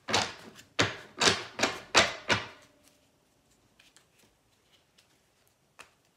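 Tarot deck being shuffled by hand: about six sharp card slaps in quick succession over the first two and a half seconds, then near quiet with one faint click near the end.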